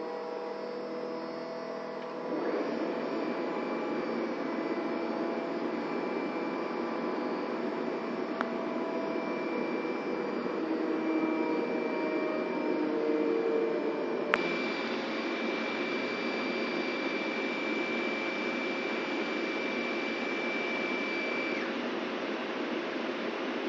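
Drinking-water processing machinery running with a steady whirring noise; it grows louder about two seconds in, and a sharp click comes near the middle, after which a thin steady tone carries on.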